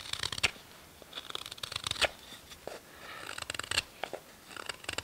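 Bahco 2449 curved wrecking knife carving a dry, very hard cherry wood spoon blank: short crackling, scraping cuts coming in several bursts as the blade shaves off the wood.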